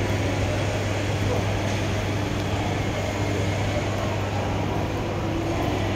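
Steady ambience of a large indoor shopping-mall atrium: a constant low hum with a faint wash of distant voices.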